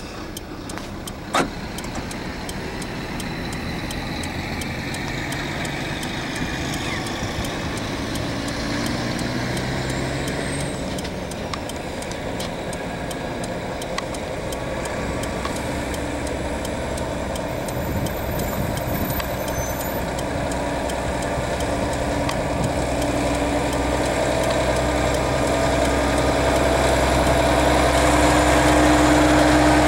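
Highway traffic heard from a moving car: tyre and engine noise, with the steady drone of a heavy-haul Volvo FH tractor unit's diesel engine growing louder toward the end as the car comes alongside it. A single sharp click about a second and a half in.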